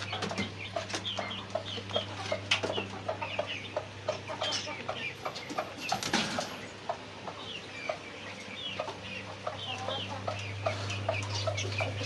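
Chickens, hens and a rooster, clucking, mixed with many short, quick chirps from other caged birds. A steady low hum runs underneath.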